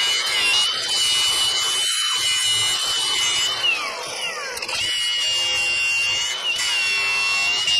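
Electric grinder running at a high steady whine while grinding down the frame gussets. About halfway through, the whine drops in pitch and falls away for about a second, then comes straight back up.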